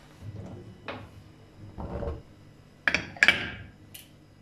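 Metal clicks as the pressure-regulator weight is set onto the vent pipe of an aluminium pressure cooker's lid: two sharp clinks close together near the end, after a lighter click and a short low rumble.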